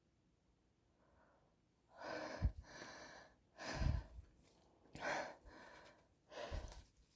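A person's gasping breaths, a run of about five about a second apart, starting about two seconds in.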